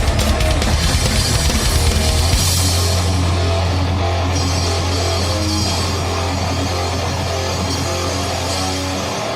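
Thrash metal played by a full band: fast drumming with distorted guitars and bass for about two seconds, then the band holds one low chord that rings on while the cymbal wash fades.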